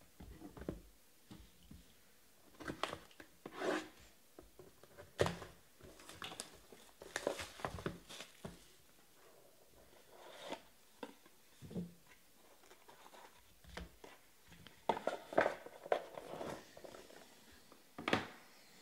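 Hands handling trading cards and their packaging: irregular rustles, scrapes and light taps as plastic card sleeves and a small black box are moved about and set down on the table, ending with a sharper tap.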